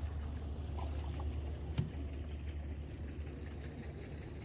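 Steady low wind rumble on the microphone over faint water sounds around a canoe on open water, with one light knock about two seconds in.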